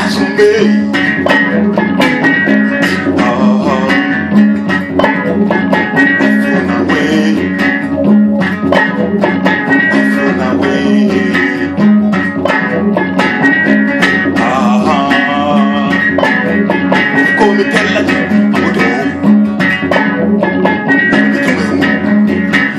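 West African calabash-bodied harp-lute plucked in a fast, busy groove, layered over looped parts with a steady repeating bass pulse.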